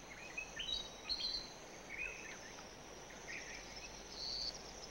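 Short bird chirps and calls, a few every second or so, over a steady faint high hiss.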